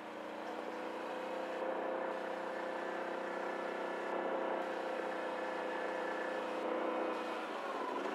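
CFMoto ATV engine running steadily at low speed as the quad is ridden, an even drone with no change in pitch.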